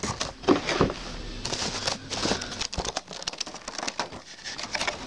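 Clear plastic tray insert of a trading-card box being handled: a scattered run of small clicks, taps and crinkles of the plastic.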